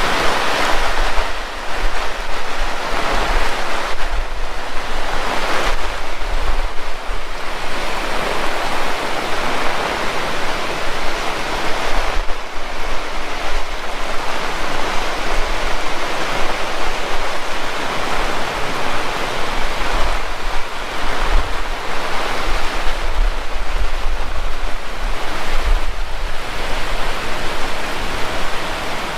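Heavy rain pouring down in strong wind, a dense hiss that swells and eases every few seconds, with gusts buffeting the microphone as a low rumble.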